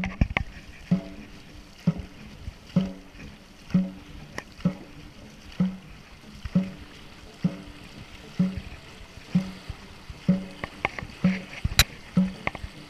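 Dragon boat drum beating steadily about once a second, keeping the paddlers' stroke rate, with paddles splashing through the water between beats. A sharp click near the end.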